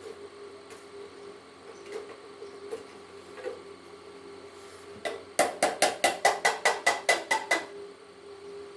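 A quick run of about a dozen sharp metal-on-metal strikes, about five a second, each ringing briefly, starting about five seconds in. A steady electrical hum and a few faint clicks lie underneath.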